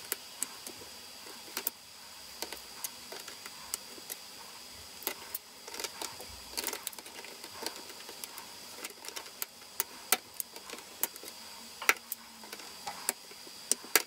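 Irregular small metallic clicks and taps, a few a second, as locking pliers grip and turn the tension screw on a Lenovo ThinkPad T440's steel display hinge.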